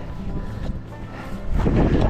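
Background music with steady held notes; about one and a half seconds in, a louder low rushing noise comes in under it.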